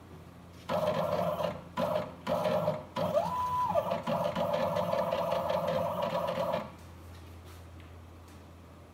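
Stepper motors of a homemade CNC router whining as they jog the spindle carriage along its screw-driven axis. There are a few short moves, then one longer run of about four seconds whose pitch briefly rises and falls as it speeds up and slows. The motors stop about seven seconds in.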